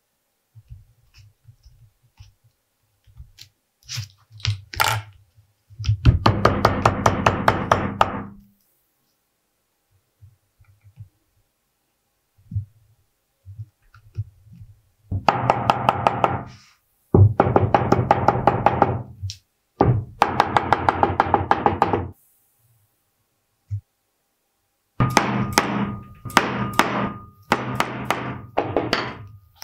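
A metal hand tool worked against vegetable-tanned leather in repeated bursts of rapid scratchy strokes, each burst one to two and a half seconds long, with a few scattered knocks before the first burst.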